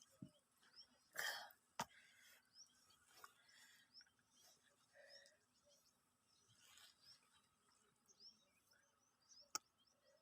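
Near silence: faint outdoor ambience with many small high chirps throughout, a short rush of noise about a second in, and two sharp clicks, one near the start and one near the end.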